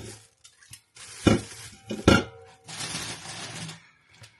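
Groceries being handled and set down: two sharp knocks or clinks less than a second apart, between stretches of crinkly handling noise.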